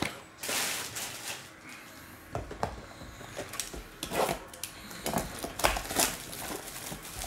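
Plastic shrink-wrap crinkling and rustling in several separate bursts as it is worked off a hockey card hobby box by hand, with light knocks of the box being handled.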